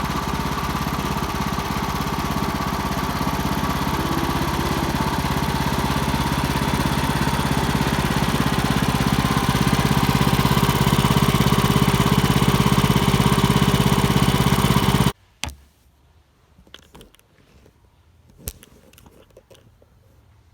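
Sawmill engine running steadily while milling a red oak log, slowly getting louder, then stopping abruptly about fifteen seconds in. A few faint knocks follow.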